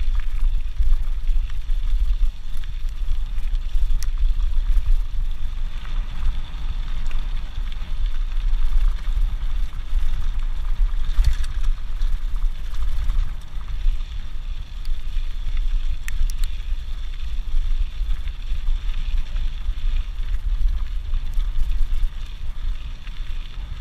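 Mountain bike rolling along a gravel dirt road: steady tyre noise on the loose surface with heavy wind rumble on a handlebar-mounted action camera's microphone, and a few short clicks and knocks from the bike over bumps.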